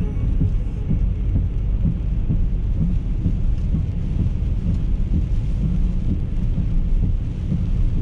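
Steady low rumble of a car driving, heard inside the cabin: engine and tyres on a wet asphalt road, with a faint hiss over the rumble.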